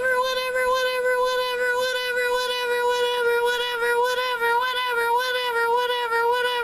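A voice holding one long, high sung note at a steady pitch, drawn out without a break.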